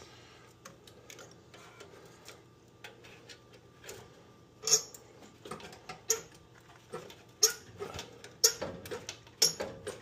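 Irregular clicks and knocks of a furnace control board being handled and pressed into its mount on the sheet-metal furnace cabinet, faint and sparse at first, then a run of sharper clicks from about halfway through.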